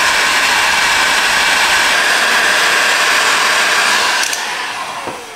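Handheld electric heat gun running steadily, its fan blowing with a whine, as it shrinks a solder-seal heat-shrink connector on a wire. About four seconds in it is switched off and the fan winds down with a falling whine.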